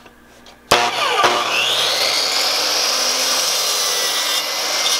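Electric compound miter saw (chop saw) switched on about a second in, its motor whine rising as it spins up, then the blade cutting through a wooden board with a steady loud noise.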